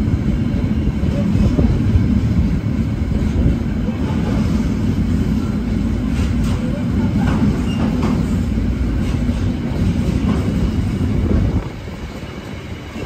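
Container freight train's loaded flat wagons rolling past on the rails: a loud, steady rumble of wheels on track with occasional clicks. The rumble drops sharply near the end.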